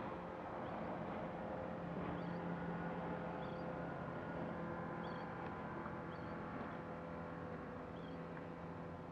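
Motorboat engine running with a steady hum at a distance across the water. A few faint, short, high chirps sound over it.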